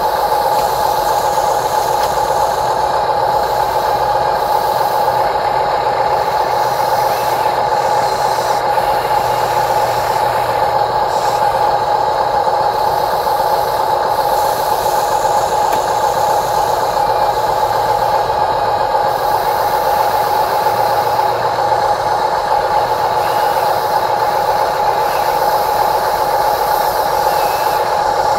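Huina 580 remote-control excavator running, with a steady, unchanging high whine over a hiss as its arm swings and loads dirt.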